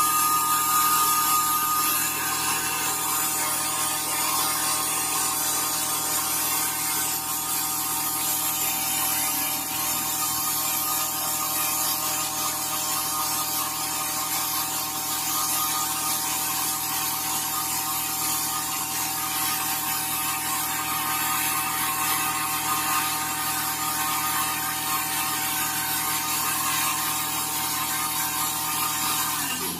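Kubota 2441 compact diesel tractor running with an ESS electrostatic orchard sprayer working: a steady mechanical whine from engine and sprayer blower over a constant rush of air.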